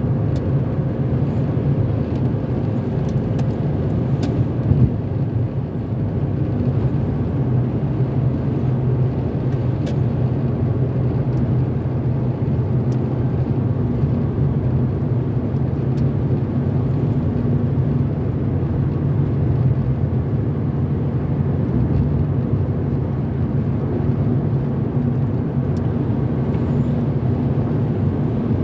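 Steady road noise inside a car at freeway speed on wet pavement: a low rumble of tyres and engine, with a few faint ticks.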